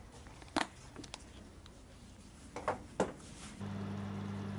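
A plastic food-storage container's lid pressed on and its clip latches snapped shut, a few sharp clicks. About three and a half seconds in, a steady low hum of an electric oven running starts.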